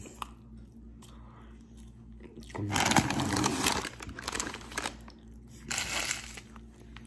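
Crinkling of a plastic snack bag being handled, in two bouts: a longer one starting about two and a half seconds in and a shorter one near the end.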